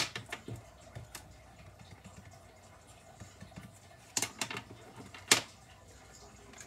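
Plastic felt-tip markers tapping and clicking against a desk and paper while a child colors: a few sharp clicks at the start, a cluster of them about four seconds in, and a single loud click a second later.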